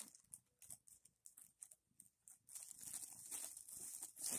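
Thin plastic shopping bag crinkling and rustling as a cat pushes its head into it: a few faint scattered crinkles at first, then steadier, louder rustling from a little past halfway.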